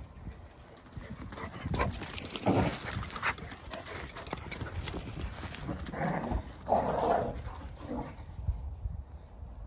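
Two dogs, a Labrador and a corgi, running and playing on paving slabs, their paws clattering. Short dog noises come about two and a half seconds in and again around six to seven seconds in.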